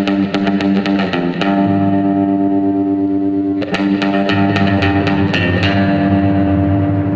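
Background music: guitar-led track with effected, slightly distorted plucked guitar over a bass line.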